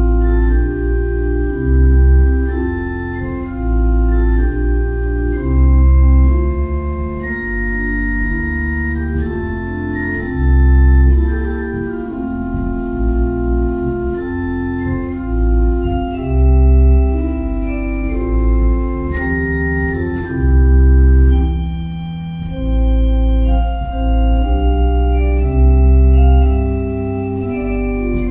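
Organ music: slow, sustained chords with deep pedal bass notes swelling every couple of seconds.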